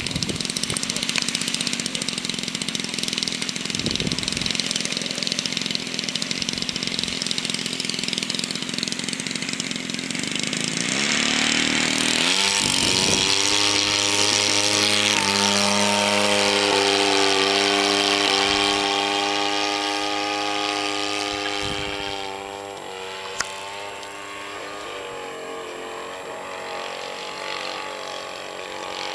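A broad rushing noise, then about eleven seconds in a small light aircraft's piston engine revs up and runs at steady high speed. It grows fainter after about twenty-two seconds, as on a test flight moving away.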